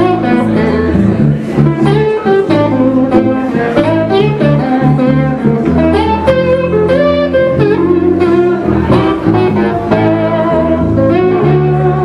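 Live band music: electric guitar picking a melody over bass guitar notes, with a steady beat.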